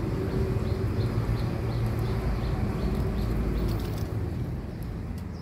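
A motor engine running steadily with a low hum, dying away about four seconds in.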